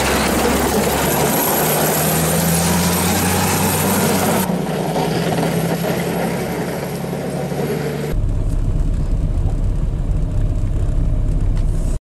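Volvo motor grader's diesel engine running steadily as the grader plows snow off the road with its blade. The engine note changes abruptly twice, at about four and a half and eight seconds in.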